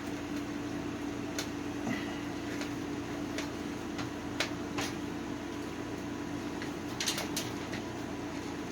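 Scattered light clicks and taps of a screwdriver working at a stiff screw in a home theater unit, with handling of the unit, over a steady low hum.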